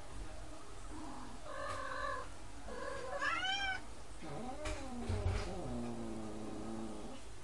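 Cats yowling during mating: three drawn-out calls. A short call comes first, then a higher one that rises and falls, then a long, low yowl that dips and holds steady before stopping.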